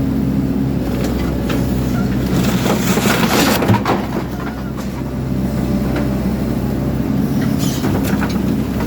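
Excavator's diesel engine running steadily while the machine crunches and tears apart a hot water system, with clattering and crushing of metal. The crunching is busiest about three to four seconds in and again near the end.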